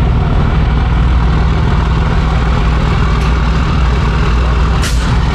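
Truck engine idling with a steady low rumble, and a short sharp hiss of air near the end.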